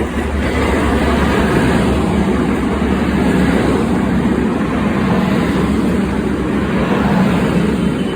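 Class 185 diesel multiple unit passing close by, a loud steady rumble of engines and wheels on the rails that eases off near the end.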